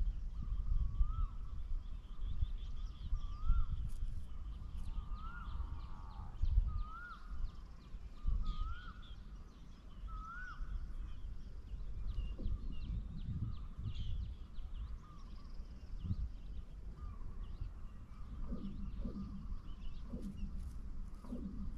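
Birds calling: a repeated whistled note that rises and falls, about every second and a half, goes on through the first half, over scattered high chirps of small birds. A low rumble of wind on the microphone runs underneath.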